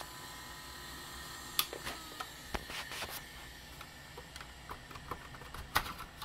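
Irregular clicks and light knocks of hands handling computer hardware, the loudest about one and a half seconds in and near the end, over a faint steady electrical whine.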